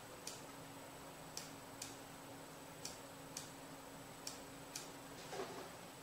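Faint, regular ticking: sharp clicks in pairs about half a second apart, the pairs repeating roughly every second and a half, with a soft rustle about five seconds in.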